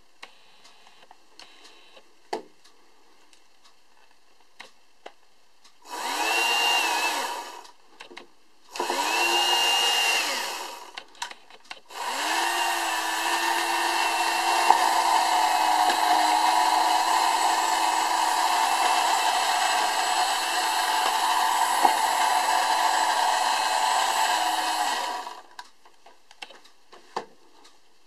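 Electric motor and lift fan of a 1960s Topre tin toy hovercraft, switched on from its wired remote: two short runs of a couple of seconds, then one long run of about thirteen seconds. Each time the whirring climbs in pitch as the motor spins up and sinks as it winds down.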